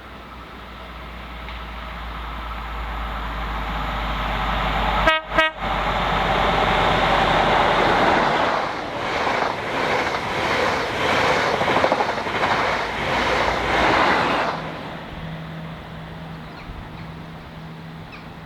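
A diesel train approaching and sounding its horn in two short blasts about five seconds in. It then passes close by with a rhythmic clatter of wheels over the rail joints, and the sound drops away quickly near the end.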